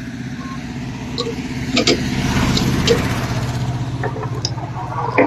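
A vehicle engine running with a steady low hum that swells and gets noisier about two seconds in, as if passing, with scattered light clicks of metal tools on the pump parts.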